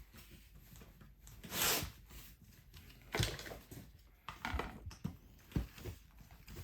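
Scattered light clicks and knocks from small flat-pack furniture parts being handled, with a short rustle about a second and a half in.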